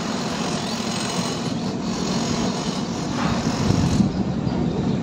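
An engine running steadily, a low even drone with no change in pace.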